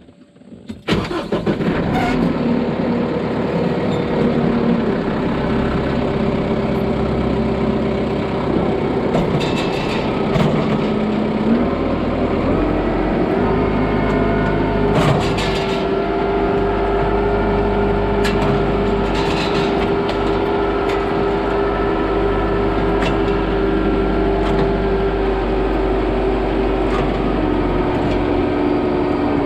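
Tractor engine starting up about a second in, then running steadily, its engine speed shifting about halfway through, with a few brief knocks over it.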